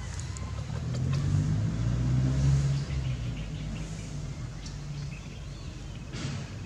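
A motor vehicle passing nearby: a low engine hum that builds about a second in, peaks, and fades away over the next few seconds. Faint short bird chirps come through above it.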